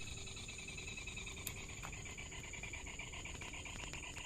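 A continuous, rapid chirping trill pulsing about ten times a second, with a steady high whine behind it, typical of an insect or frog chorus.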